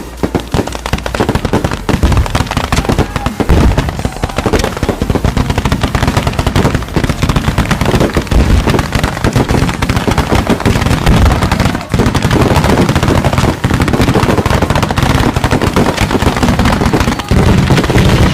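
Firecrackers going off in rapid, unbroken succession, a dense crackle of sharp pops like machine-gun fire that gets louder and heavier near the end.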